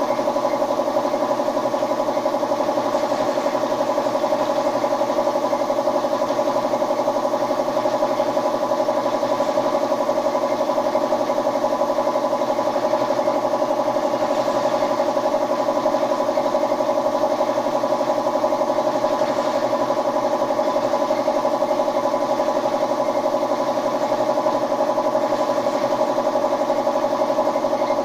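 A motor running at a constant speed, an unchanging steady hum that does not rise, fall or stop.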